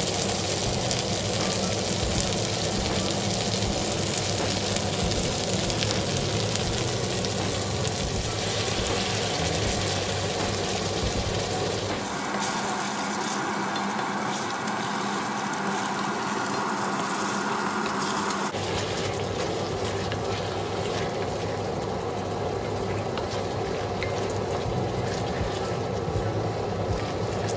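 Shiitake mushrooms, onion and garlic sizzling steadily as they are stir-fried in a stainless-steel wok. The sizzle changes character for several seconds partway through, then returns.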